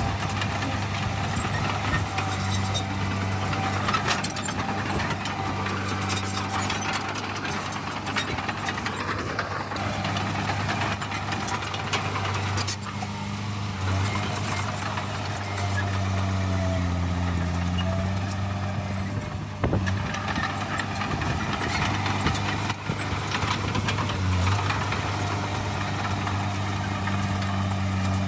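Heavy earthmoving machine's diesel engine running steadily, its pitch dipping briefly under load a little past halfway, with scattered clanks.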